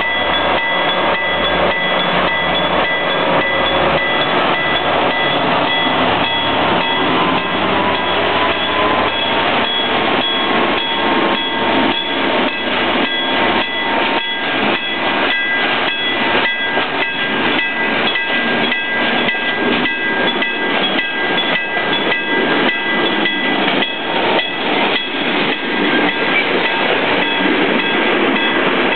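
Freight train wagons rolling past on the rails, with a fast, even clicking of wheels over rail joints and steady high-pitched tones from the running gear. A low drone underneath fades out about halfway through.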